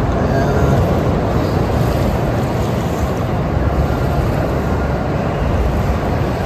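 Steady rushing outdoor noise of wind on the microphone and strong surf, heaviest in a low rumble.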